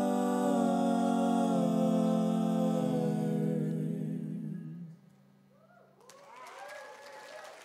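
Voices holding one long sung note in close harmony at the end of a western swing song, fading out about five seconds in. Faint wavering vocal sounds follow near the end.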